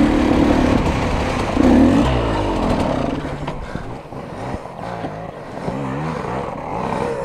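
Dirt bike engine revving up close for the first few seconds, then dropping away; after that, other dirt bikes rev up and down further off.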